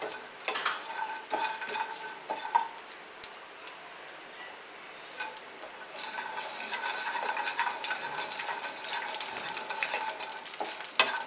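Wooden spatula scraping and stirring dry coconut pieces as they roast in a nonstick kadai, with light sizzling. The crackling picks up and grows denser about six seconds in.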